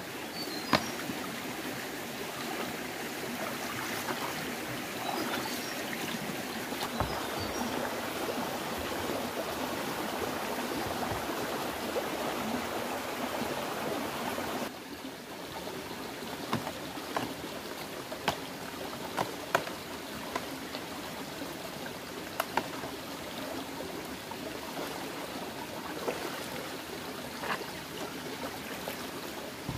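Shallow rocky stream flowing and trickling, with scattered splashes and knocks as someone wades through the water. The water sound drops a little about halfway through.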